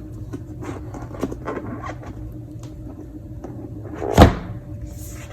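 Cardboard packaging of an Apple Magic Keyboard being handled during unboxing: small rustles and taps, with one loud thump about four seconds in.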